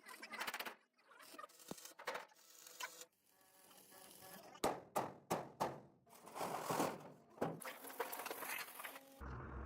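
Steel-fabrication work noise: irregular sharp metallic knocks and clatter with stretches of hissing noise between them. A steady low hum comes in near the end.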